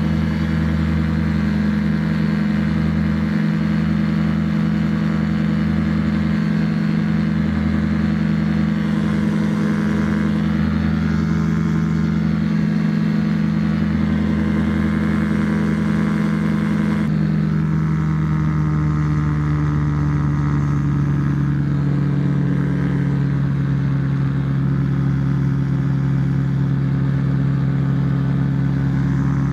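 Rotax 582 two-stroke twin engine of a 1987 Spectrum Beaver RX 550 ultralight running at high power with its propeller for a go-around takeoff and climb, a loud steady note. About seventeen seconds in the engine speed drops to a lower steady note.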